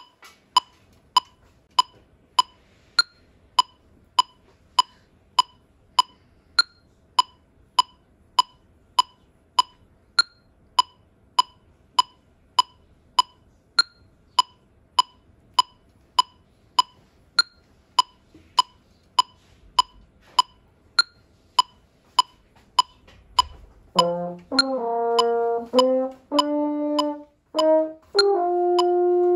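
Seiko STH200 electronic metronome clicking steadily at 100 beats per minute, with a higher accent click every sixth beat. About 24 seconds in, a French horn comes in with a few short notes, then holds a note the tuner reads as E-flat 4.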